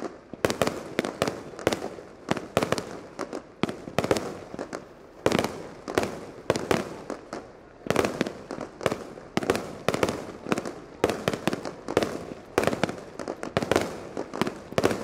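Aerial fireworks bursting in a rapid, uneven volley of sharp bangs, several a second.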